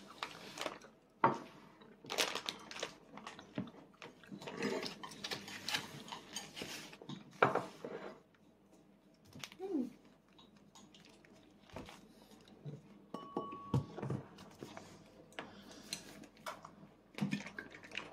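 Scattered light clicks and taps of chopsticks and plastic tableware at a meal, with two sharper knocks about a second and about seven seconds in.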